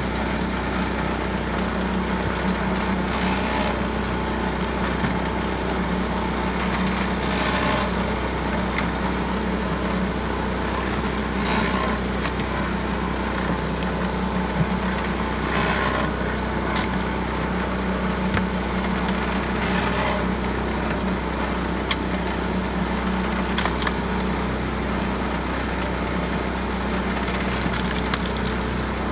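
Small engine running steadily, driving a pitman-arm firewood splitter, with a short crunch of splitting wood about every four seconds and a few sharp clicks as the wedge works through the rounds.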